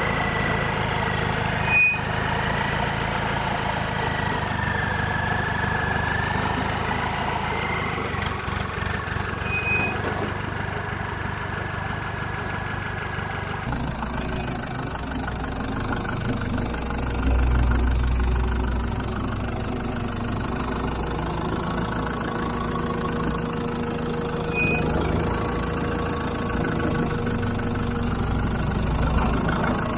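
Land Rover Defender V8 engine running at low revs under load as the 4x4 crawls up a rock step, with a high wavering whine over it and a sharp knock about two seconds in. About fourteen seconds in it gives way to a duller, closer recording of another Defender's engine working over rock ledges, with a louder low rumble around seventeen seconds.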